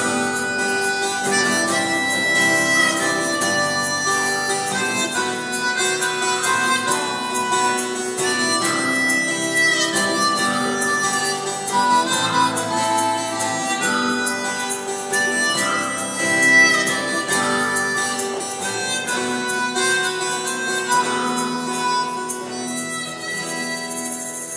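Harmonica playing a melody over acoustic guitar accompaniment: an instrumental passage of a song.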